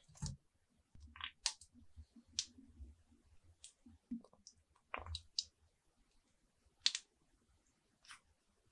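Scattered light clicks and taps of hands working at a kitchen counter, as dry egg noodles go into a steel saucepan of water and tubes of food-colouring gel are handled and squeezed over them. One click late on is sharper than the rest.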